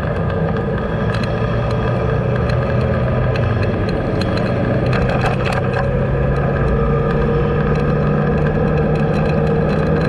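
Engine of the vehicle carrying the camera running steadily under road and wind noise, with scattered light clicks and rattles. The engine note rises a little about halfway through as it picks up speed.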